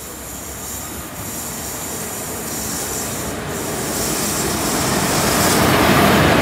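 Express train pulling into the station behind an electric locomotive, its running noise growing steadily louder as the engine draws level with the platform.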